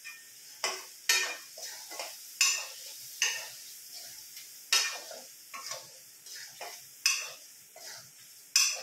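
Metal spoon scraping and stirring paneer cubes in spiced oil in a steel kadai: about a dozen sharp, irregular scrapes, roughly one or two a second, as the paneer is lightly fried.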